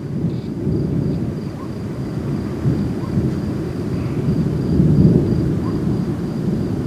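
Erupting Cumbre Vieja volcano rumbling: a continuous deep, thunder-like rumble that swells a little about five seconds in.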